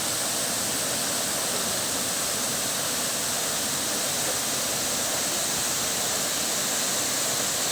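Steady rushing of falling water from Dudhsagar Falls, an even hiss that holds constant throughout.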